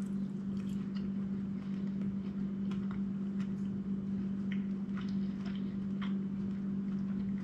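A person chewing a fried, breaded game-bird nugget, with faint irregular mouth clicks, over a steady low hum.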